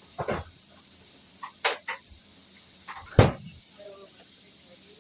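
Onions frying in oil in a pan, sizzling steadily, with a few knocks of a utensil or container, the loudest a little past three seconds in.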